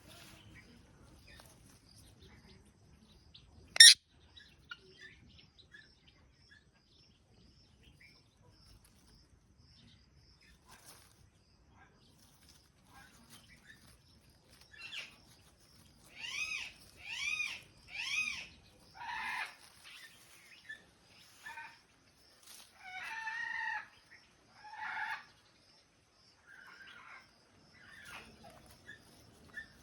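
Pet parrot calling: a string of short squawks, the first three rising and falling in pitch in quick succession about halfway through, then several more over the next ten seconds. A single sharp click about four seconds in is the loudest sound.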